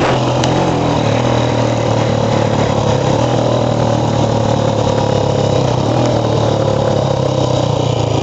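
Single-cylinder Honda CG pushrod engine of a motorcycle running steadily, ridden flat out, with wind and road noise over it. The engine is down on power, which the rider notices on hills, after a rebuild and valve-clearance adjustment.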